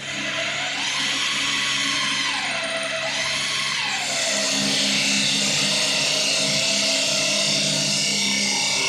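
Routerstar RS1530ATC CNC wood lathe running and turning a wooden blank. The noise starts suddenly, with a high machine whine that rises and falls twice, then settles into a steady run.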